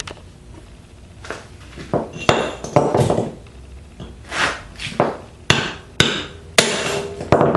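Hammer blows on the steel casing of a small microwave fan motor, struck along the seam on its edge to knock the end off and free the copper winding. A string of irregular strikes, some sharp and some duller, coming faster toward the end.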